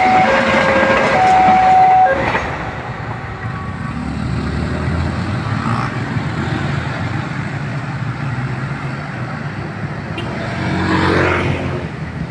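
Level-crossing warning alarm sounding two alternating tones over the rumble of a passing KA Malabar passenger train; both stop about two seconds in. After that, motorcycle and car engines run as road traffic crosses the tracks, with one vehicle passing louder and rising in pitch near the end.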